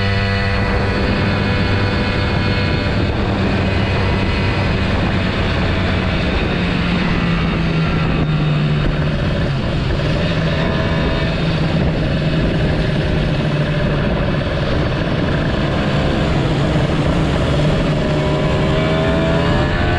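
Kawasaki Ninja motorcycle engine running steadily under way, with a steady rush of wind noise; the engine pitch dips slightly midway and climbs near the end as the revs rise.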